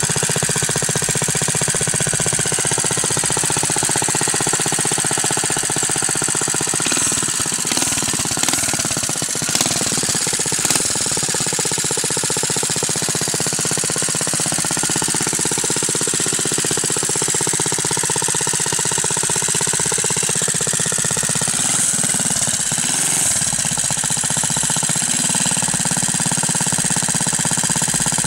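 Small single-cylinder engine of a homemade motorized bicycle running steadily, with a fast, even popping beat.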